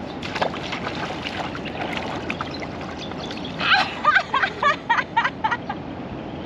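Light splashing of feet wading into shallow water over a steady outdoor wash. About halfway through comes a quick run of about eight high, chirpy calls or squeals, roughly four a second.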